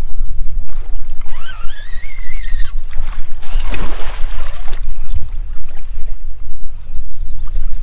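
A snagged longnose gar thrashing and splashing at the surface near the bank, with a noisy splash about three and a half seconds in, under a steady low rumble of wind on the microphone. A high, wavering call rises about a second in.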